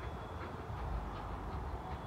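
Steady low rumble of a distant Ol49 steam locomotive approaching with its passenger train, with faint, short, irregular sharp sounds on top.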